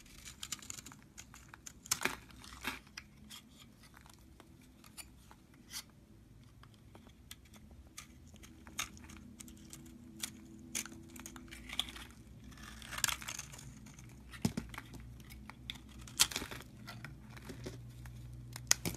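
A knife blade carving and shaving a dry bar of soap: irregular crisp crunches and crackles as flakes and powder break away, with a few longer scraping cuts.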